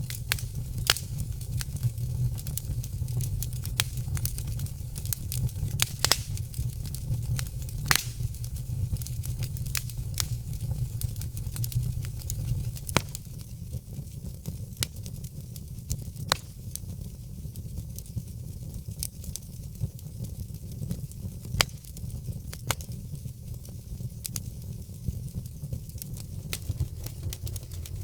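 Fire crackling: irregular sharp pops and snaps, a few much louder than the rest, over a steady low rumble of the flames.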